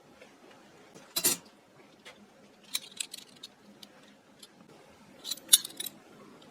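Stainless steel and silver-plated flatware clinking and clattering as pieces are picked through, with a louder clatter about a second in and a quick run of clinks near the end.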